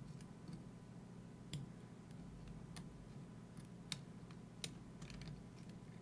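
Small metal lock parts clicking and tapping as they are handled and fitted back into the lock during reassembly: a handful of sharp, separate clicks at irregular intervals.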